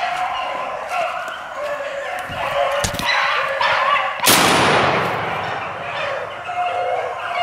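Beagles baying on a rabbit's track, then a single shotgun shot about four seconds in, its blast dying away over about a second while the hounds keep running.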